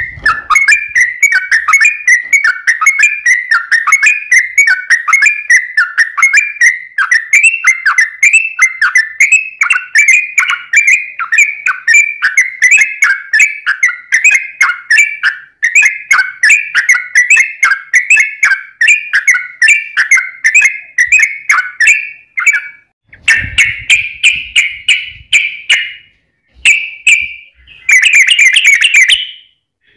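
Yellow-vented bulbul singing a long rapid-fire run of bubbly, whistled notes, repeated several times a second at a steady pitch. About three-quarters through it breaks into short gaps and denser chattering bursts, with a few low thuds.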